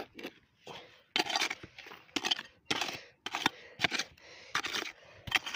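Small hand digging shovel scooping into dry, crumbly soil: a run of irregular scraping, crunching strokes as a deep hole is dug out.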